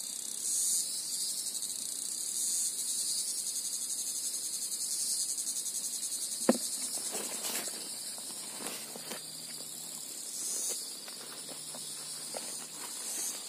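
Steady, high-pitched trilling of insects, cricket-like, throughout. A single sharp click comes about halfway through, followed by scattered rustling and scraping.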